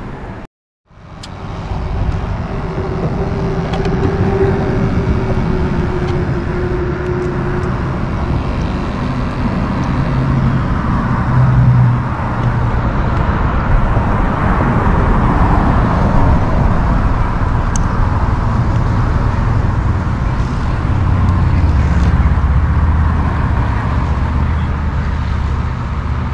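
Road traffic running steadily on the bridge, vehicles passing, after a short break just under a second in.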